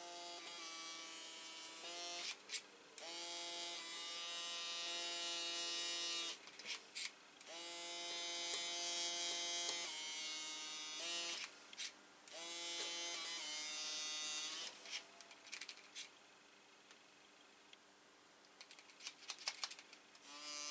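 Small electric motor of a pen-shaped handheld power tool running in four bursts of two to three seconds, each spinning up quickly to a steady whine. Light metallic clicks sound between the bursts and several near the end.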